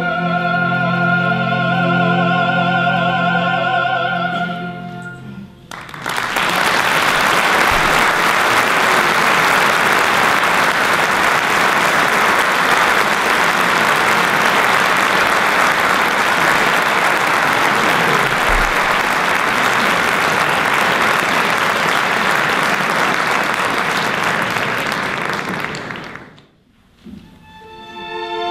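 A soprano holds a final note with vibrato over choir and string orchestra, ending about five seconds in. Then the audience applauds steadily for about twenty seconds. After a brief hush, the strings begin the next piece near the end.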